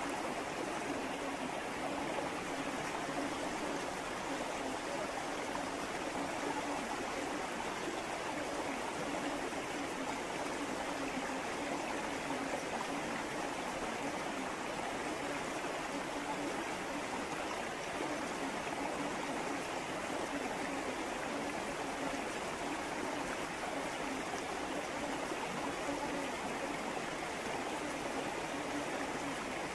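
A river flowing, a steady rush of running water with no change throughout.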